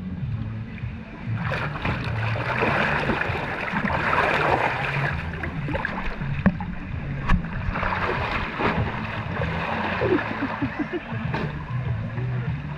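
Water rushing and splashing, with wind rumbling on the microphone and a few short knocks.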